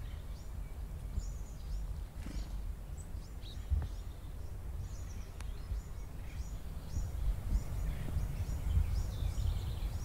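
Black-capped chickadees giving many short, high-pitched calls and chips, over a steady low rumble of wind on the microphone.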